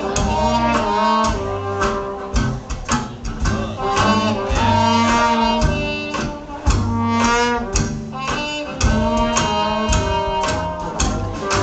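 Barrel organ playing a tune: steady held notes with sharp starts over an alternating bass line.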